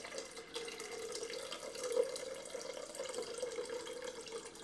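Water poured slowly and steadily into a blender jar, a continuous splashing stream with a steady ringing tone from the filling jar.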